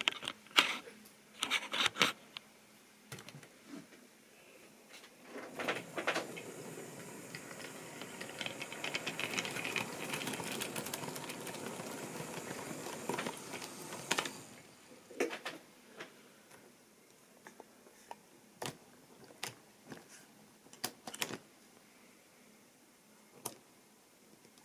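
Model railway train of tank wagons rolling past on the track: a steady, fast clicking rattle of wheels over the rail joints for about nine seconds, with scattered clicks and knocks before and after.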